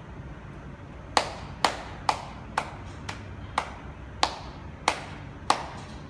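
Buttons on a small handheld remote control being pressed: nine sharp clicks, about two a second, over a steady low hum.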